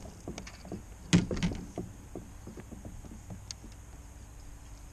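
Irregular clicks and knocks of rod, reel and kayak being handled while fighting a fish, with one sharp knock about a second in and lighter scattered ticks after it.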